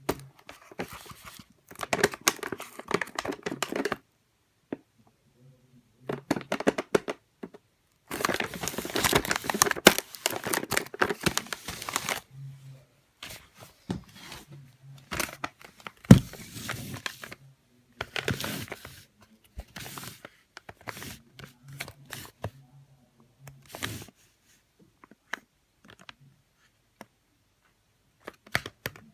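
Packaging being handled: crinkling and rustling in irregular bursts with short pauses, and a sharp knock about sixteen seconds in.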